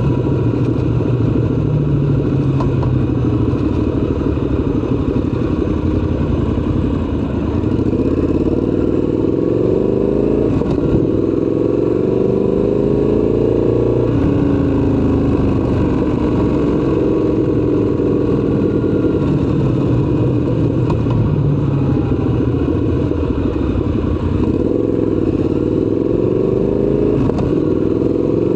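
Triumph Scrambler 1200 XC's 1200 cc parallel-twin engine under way in traffic. It pulls up through the revs several times, its pitch climbing and then dropping back at each gear change or roll-off.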